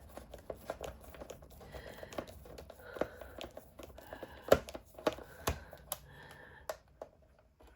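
Small clicks, taps and scrapes of a screwdriver on the plastic body of a doll as it is handled and worked on, with a few sharper knocks in the middle.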